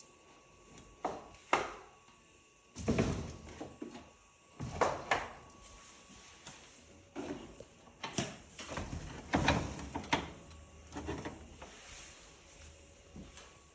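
Wooden door being handled: a series of irregular knocks, clunks and rattles from the door leaves and their latch hardware.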